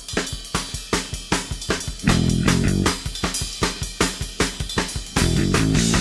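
Rock music with a fast drum-kit beat, bass guitar and electric guitar coming in about two seconds in.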